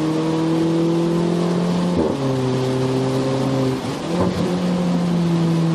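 Volkswagen Polo GT TSI's turbocharged petrol engine heard from inside the cabin while driving, its note rising slowly. The note breaks about two seconds in and comes back lower, then breaks again around four seconds in and comes back higher.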